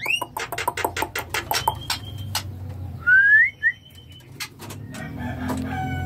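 White-rumped shama calling: a rising whistle, then a quick run of sharp clicking chatter for about two seconds, then a loud rising whistle about three seconds in. Near the end a rooster starts crowing in the background.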